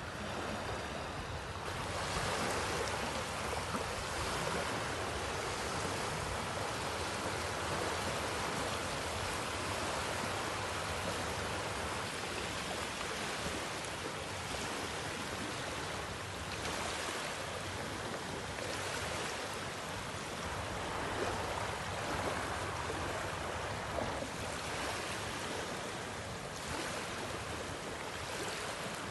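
Small waves of shallow surf washing in over flat wet sand: a steady hiss that swells slightly every few seconds.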